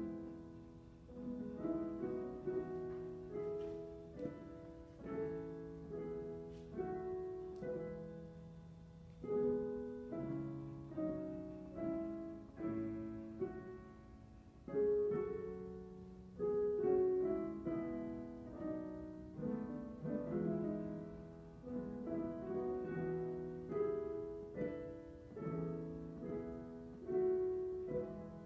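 Several digital pianos playing a piece together in struck chords, roughly one a second, each fading after it is played.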